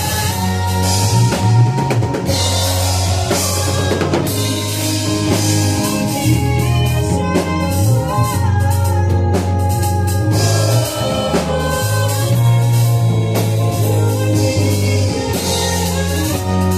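Gospel worship band playing: a drum kit with bass drum and snare under long held bass notes and sustained chords.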